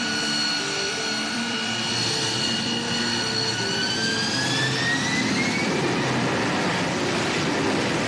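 The Rolls-Royce Pegasus turbofan of an AV-8B Harrier II running at high power for a vertical takeoff: a loud jet rush with a steady high whine that rises in pitch about halfway through as the engine spools up and the jet lifts off the deck.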